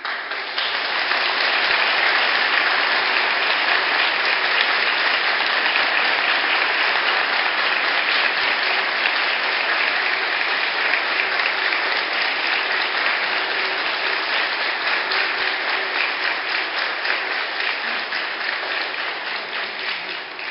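Congregation applauding: sustained, dense clapping that starts suddenly and slowly fades toward the end.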